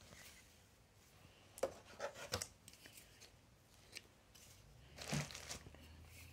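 Scissors snipping, faint: three quick cuts about a second and a half in, then another short run of cuts about five seconds in.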